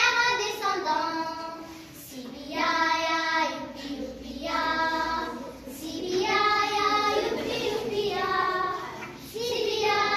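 Three young girls singing a song together unaccompanied, in sung phrases with short breaths between them.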